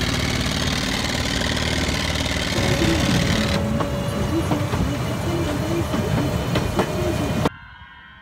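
A small bumper boat's motor runs steadily for the first few seconds. Then a tourist train runs along with scattered clicks from the track and a steady tone. Near the end the sound drops abruptly to much quieter outdoor ambience.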